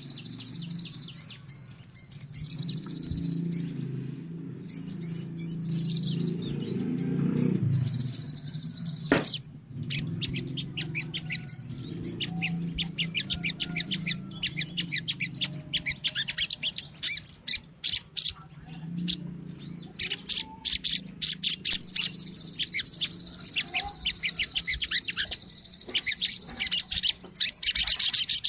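A colony of sogon birds (sunbirds) calling together: many rapid, high, thin chirps and trills overlapping without pause, over a faint low hum, with one sharp click about nine seconds in.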